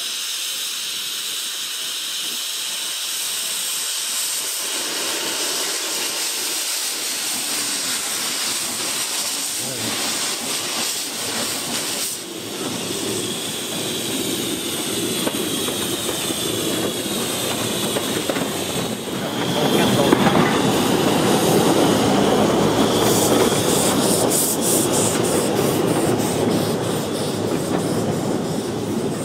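Small narrow-gauge steam locomotive hissing steam from the open cylinder drain cocks at its wheels, then getting under way. It grows louder about twenty seconds in, with a fast even beat near the end.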